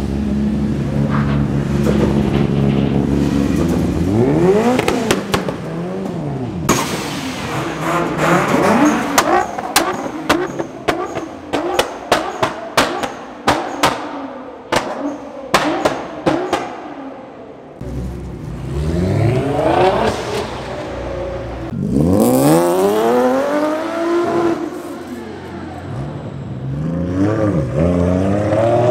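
Modified Japanese performance car engines revving in a tunnel: a steady idle, then repeated rev blips that rise and fall in pitch. In the middle comes a long run of sharp pops and bangs from the exhausts, with more rev blips toward the end.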